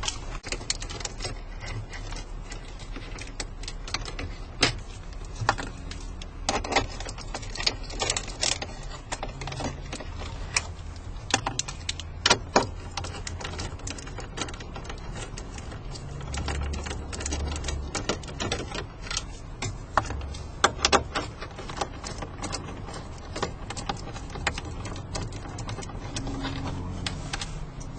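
Scattered clicks, taps and knocks of hand tools, screws and plastic dash trim as the radio is worked loose from a 2008 Cadillac CTS dashboard, over a low steady hum.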